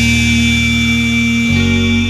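Song music: one long held note over guitar and bass, the bass moving to a new chord about one and a half seconds in.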